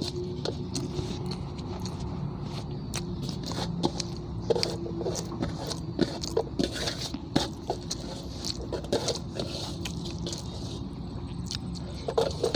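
Hand mixing and scooping rice in a large metal basin: fingers scraping on the metal with scattered light clicks, and a man chewing mouthfuls of rice.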